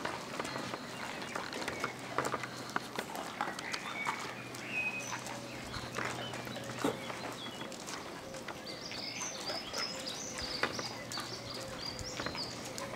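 Several huskies moving about on wet stone tiles, their claws clicking irregularly, with odd knocks and snuffling as they nose at the ground.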